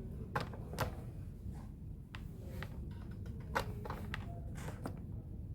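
Light handling noise: scattered soft clicks and taps, about ten spread unevenly over a faint low hum.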